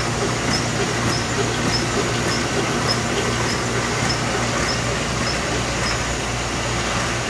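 Kirk Rudy 535 tabber and feeder running: a steady machine hum with a short, high tick repeating about every 0.6 seconds as it cycles. The ticks stop about six seconds in while the hum goes on.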